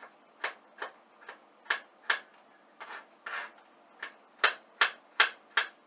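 Knife chopping on a cutting board: a run of short, sharp knocks, uneven at first and settling into about two and a half chops a second near the end, as ginger is minced fine.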